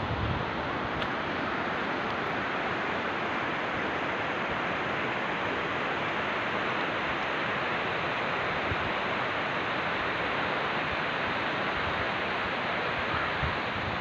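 Lidder River rapids rushing over rocks: a steady, unbroken noise of fast white water.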